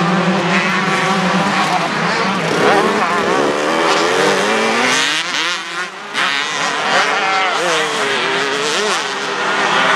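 Several motocross bikes racing, their engines revving up and falling back again and again as the riders work the throttle and gears. The sound dips briefly a little over halfway through.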